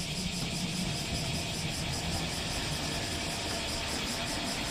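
Steady city street traffic noise: a streetcar and cars running along the road below, a low rumble under a constant hiss.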